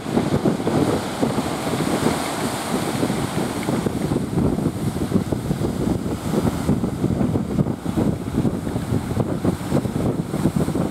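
Wind buffeting the microphone aboard a fishing boat at sea, a continuous gusty rush mixed with the noise of the water.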